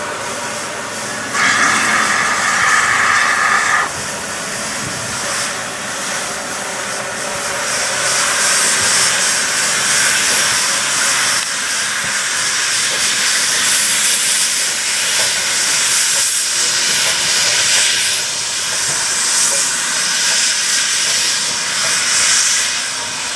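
LMS Class 3F 'Jinty' 0-6-0 tank engine No. 47406 sounds its whistle once for about two and a half seconds, starting about a second and a half in. It then hisses steadily as it moves off, steam escaping around its cylinders, the hiss growing louder from about seven seconds in.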